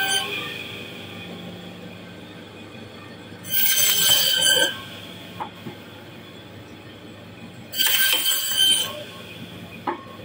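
Meat band saw running with a steady hum, its blade screeching as it cuts through fish. One cut ends just at the start, then two more cuts of about a second each come around four and eight seconds in.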